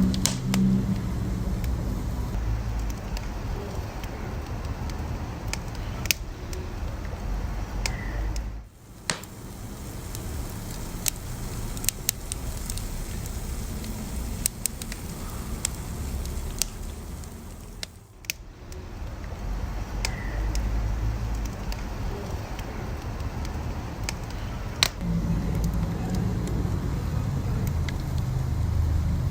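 Wood fire burning: a steady low rumble of flames with sharp crackles and pops scattered through it, a few standing out louder.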